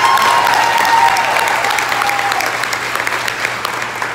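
Audience applauding loudly, dense clapping that starts just before and slowly dies away near the end, with one long high note held over it for the first two seconds or so.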